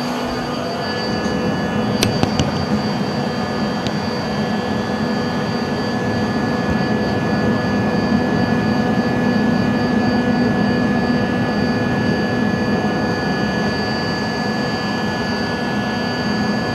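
Business jet's engines heard inside the cabin during the climb after takeoff: a steady rush with several fixed whining tones and a low hum underneath. A few short clicks come about two seconds in, and one near four seconds.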